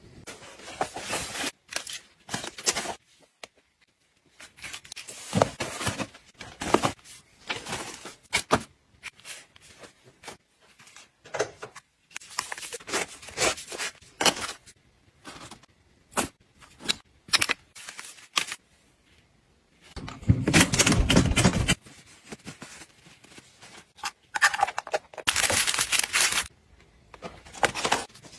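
Small items being handled and packed into a soft tote bag: plastic and foil packets rustling and crinkling, with light taps and thuds as things are set down, in irregular bursts. The longest, loudest rustle comes about two-thirds of the way through.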